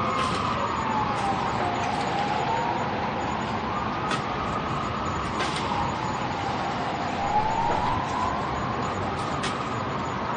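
Distant ambulance siren in a slow wail, rising and falling about once every four to five seconds, over a steady hiss of rain with a few sharp ticks.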